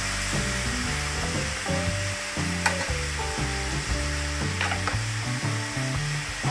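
Marinated chicken drumsticks sizzling steadily in a frying pan of hot marinade, with a wooden spoon moving them and knocking sharply against the pan a few times.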